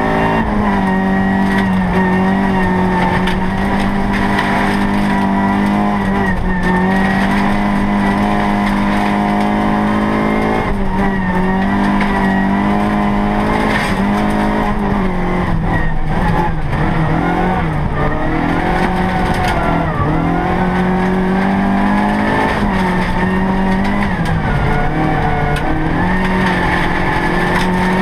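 Opel Astra OPC Group H rally car's engine revving hard, heard from inside the cabin. Its pitch drops and climbs back several times, most often in the second half.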